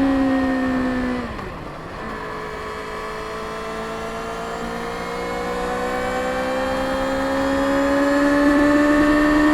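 Stock 2024 Kawasaki Ninja ZX-6R's 636 cc inline-four with its stock exhaust. The engine note sinks and briefly drops away about a second and a half in. It then climbs slowly in pitch and grows louder as the bike pulls.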